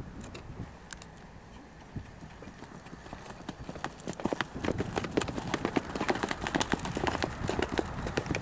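Horse's hoofbeats, sparse at first and then a quick, dense run of hoof strikes from about three seconds in, growing louder as the horse comes closer.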